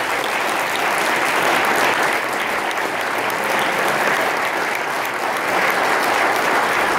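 An audience applauding, a steady clapping that holds through the whole stretch at the end of a song.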